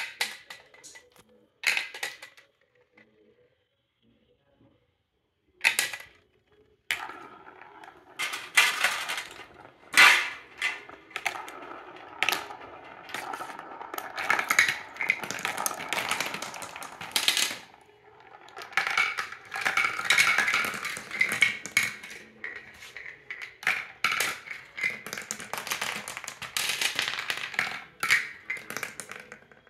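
Marbles rolling and clacking along the plastic track of a VTech Marble Rush marble run: a few separate clicks at first, then from about seven seconds a near-continuous rattle of small knocks and clicks as balls run down the track.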